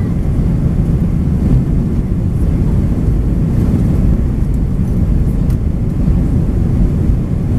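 Airbus A320 cabin noise in the climb after takeoff: a steady low rumble of the jet engines and rushing air, heard inside the cabin.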